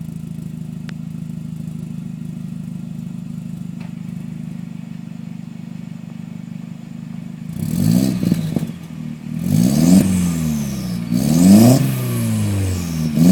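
2001 VW New Beetle's 1.8-litre turbocharged four-cylinder engine breathing through a 3-inch downpipe, 2.5-inch catback and Magnaflow muffler: idling steadily, then about seven and a half seconds in revved in four quick throttle blips, each rising and falling in pitch.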